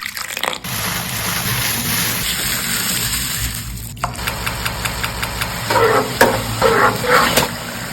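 Food sizzling in a hot pan, with a run of rapid clicks about four seconds in and a few scraping strokes near the end.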